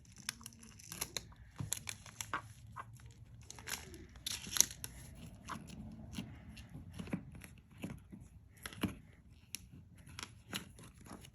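Soft butter slime being pressed and stretched by hand, giving irregular sticky crackles and small clicks and pops.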